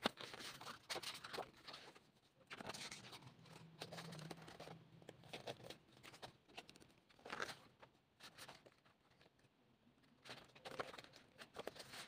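Paper handling: a printed card insert slid out and the pages of a glossy album photobook turned, heard as irregular soft rustles and brushing page flips.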